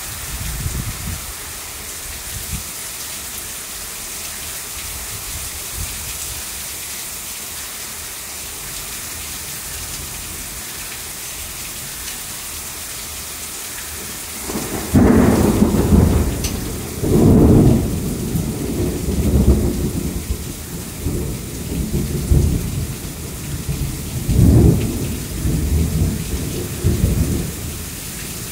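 Heavy rain falling steadily in a thunderstorm. About halfway through, thunder breaks in suddenly and rumbles in several loud surges for around twelve seconds before the rain alone is left.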